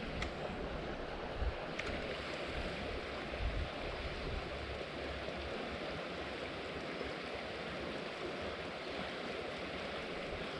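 Steady rush of flowing creek water, even and unbroken, with a few faint low bumps.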